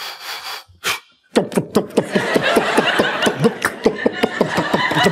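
A man's voice making sound effects into a microphone: after a short pause, a fast run of mouth clicks and short squeaky vocal chirps for feet running through water, mixed with laughter.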